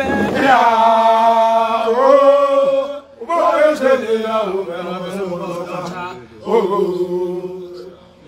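A man's voice chanting in three long held phrases with short breaths between them. The notes are drawn out and mostly level in pitch.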